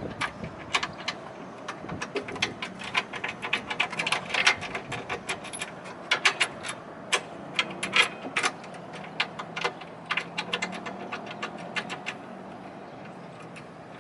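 Irregular sharp metallic clicks and clinks, some in quick clusters, from bolts, nuts and washers being worked by hand and with tools while fitting a tornado siren to its mount, over a faint steady hum.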